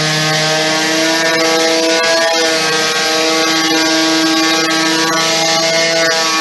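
Electric sander running steadily with a motor whine whose pitch wavers slightly, sanding primer off an MDF window sill.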